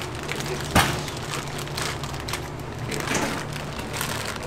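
Kitchen utensils knocking and clattering in a ramen kitchen: one sharp knock about a second in, then lighter clatters, over a steady low hum.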